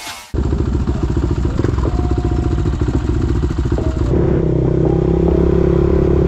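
Suzuki LTR 450 quad's single-cylinder four-stroke engine running with a rapid, even pulsing beat, which about four seconds in turns into a steadier, stronger hum.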